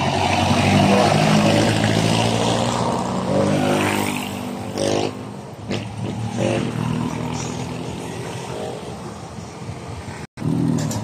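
Motorcycle engine of a sidecar tricycle running close by, its pitch rising as it revs about three to five seconds in. The sound cuts out for a moment near the end.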